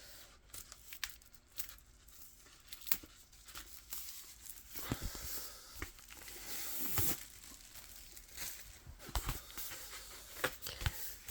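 Crinkling and rustling of a vinyl album's packaging as it is handled, with scattered small clicks and a louder rustle a little past the middle.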